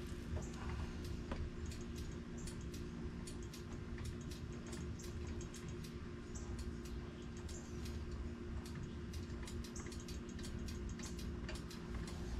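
Steady low electric fan hum, with light, irregular metallic ticks and clicks from hand work with a wrench at a brake caliper's bleeder screw.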